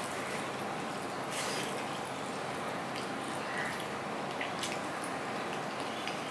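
Eating by hand: fingers working rice on a stainless steel plate and chewing, heard as a few faint, sharp clicks over a steady background hiss.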